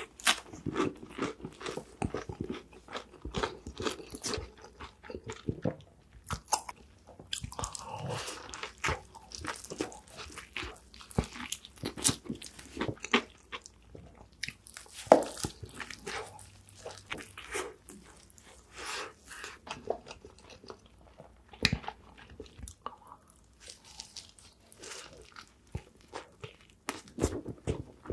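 Close-miked eating: repeated bites into crispy fried chicken, with crackling crunches of the coating and wet chewing between them, at an uneven pace.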